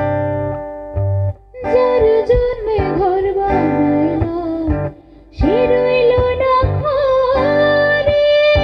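Acoustic guitar chords, then a woman singing long, ornamented notes over the guitar in two drawn-out phrases, with a short break about five seconds in before a long held note.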